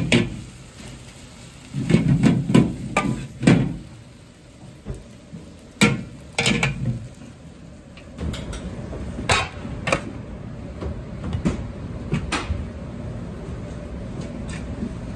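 Metal ladle clanking and scraping against a large wok as fried rice is tossed and then scooped out, in sharp irregular clusters. A steady low noise runs under the second half.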